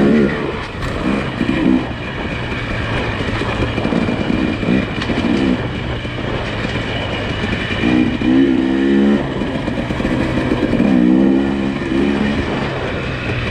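Nissan Pathfinder SUV engine running over a steady low hum, its revs rising and falling several times and strongest about eight and eleven seconds in.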